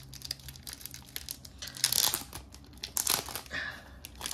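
Thin clear plastic packaging crinkling as a stack of card sleeves is handled and worked out of its bag, a dense crackle with louder rustles about two and three seconds in.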